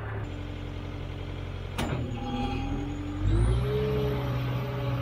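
New Holland skid steer engine running steadily, then revving up a little over three seconds in, with a rising high whine. A single sharp clack comes just before the midpoint.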